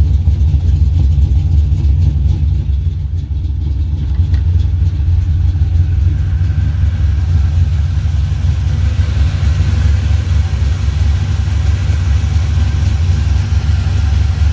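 Chevrolet 350 (5.7 L) small-block V8 in a 1986 C10 pickup running steadily, freshly fitted with new spark plugs and new oil.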